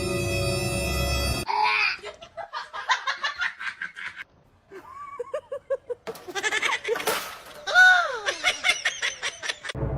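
Music, which stops abruptly about a second and a half in, then an animal bleating in rapid pulsed runs. The loudest is a long cry near the end that falls in pitch.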